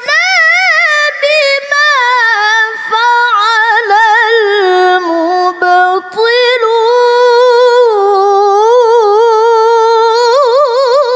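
A woman's voice reciting the Quran in melodic tilawah style, drawing out long ornamented notes with a quick wavering vibrato, with a few short breaks for breath.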